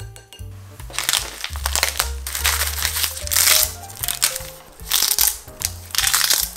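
Dried laver (gim) sheets for kimbap crackling as they are folded and torn into quarters by hand, in several loud crinkling bursts, over background music.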